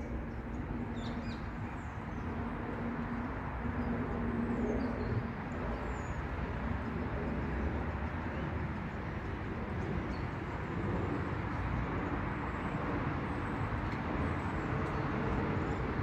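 Steady rumble of distant city traffic, with a few faint, high bird chirps in the first few seconds.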